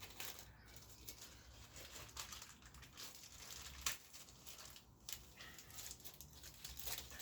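Faint crinkling and rustling with light clicks from parts and packaging being handled, with one sharper click about four seconds in.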